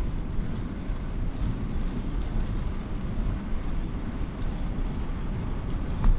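Wind buffeting the microphone while cycling, a steady low rumble, with a brief knock near the end.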